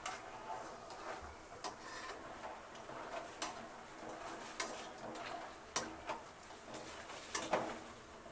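Metal skimmer clinking and scraping against an aluminium kadai as fried gavvalu are scooped out of hot oil, with several sharp clicks at irregular intervals over a faint sizzle of frying oil.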